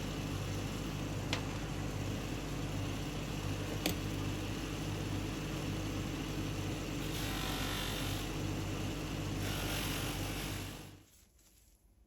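A small motor-driven machine running with a steady hum, with two sharp ticks, about a second in and near four seconds in. It stops abruptly about a second before the end, leaving near silence.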